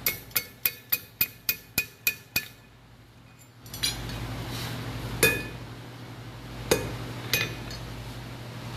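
Blacksmith's hammer striking iron on an anvil: a quick run of about nine ringing blows, roughly three a second, then a pause and three more single blows. A steady rushing noise sets in about four seconds in.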